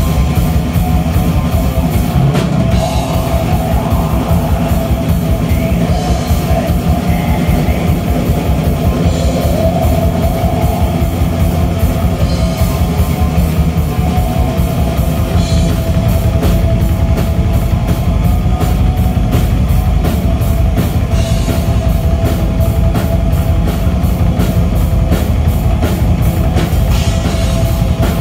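Black metal band playing live: heavy distorted electric guitars over fast, dense drumming on a full drum kit, loud and continuous.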